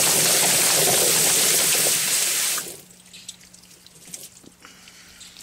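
Whizbang tub-style chicken plucker running, a scalded chicken thrashing against its rubber fingers under a water spray: a loud steady rush of water and flapping that cuts off suddenly about halfway through as the machine stops, leaving a faint hum. The feathers are being stripped from the bird.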